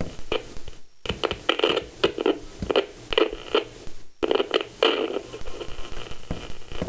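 Radio broadcast of a voice playing through a late-1980s J.C. Penney clock radio's speaker, cutting out briefly twice.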